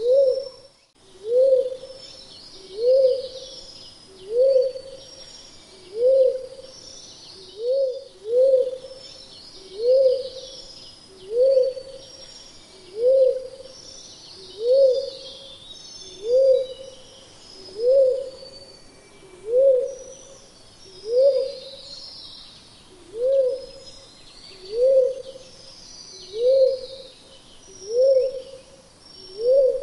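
Pink-headed fruit-dove giving a long, even series of single low hoots, about one every second and a half, each rising then easing off. Fainter high-pitched chirping runs behind it.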